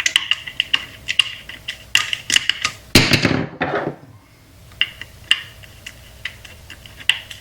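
Small clicks and taps of a screwdriver and plastic parts being handled as a jet ski's water pressure regulator is taken apart, with a louder rattling clatter about three seconds in.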